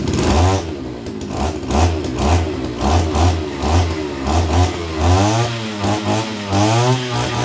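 Kioritz RMB343D 34 cc two-stroke brushcutter engine revved in quick throttle blips, about two a second, then in longer rises and falls in pitch near the end, showing how sharply it picks up.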